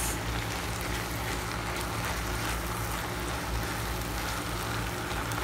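Ground beef sizzling in a pot as it fries in its own juices with tomato paste, stirred with a silicone spatula, over a steady low hum.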